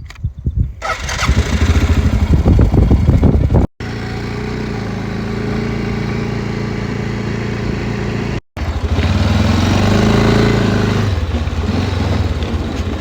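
Honda Rincon ATV's single-cylinder engine running under way, loud and pulsing from about a second in. It cuts out abruptly twice, and its pitch rises as it speeds up about two-thirds of the way through, then settles lower.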